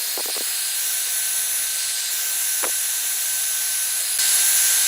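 Hair dryer blowing steadily with a faint high whine, getting louder about four seconds in. It is warming a phone's plastic front panel to soften the adhesive under the display glass.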